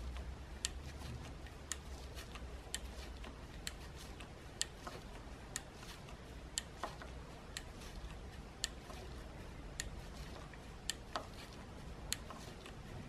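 Detent clicks of a motorcycle rear shock absorber's compression adjuster screw being turned with a screwdriver: a steady series of sharp clicks, about one a second, as it is set to the manual's standard number of clicks.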